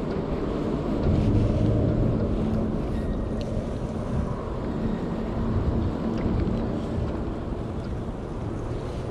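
A motor's steady low drone that swells about a second in and slowly fades over the next several seconds.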